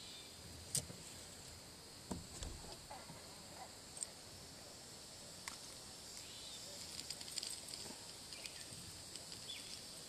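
Steady high-pitched insect trilling, with a few sharp clicks and light knocks of handling close by, the first and loudest about a second in.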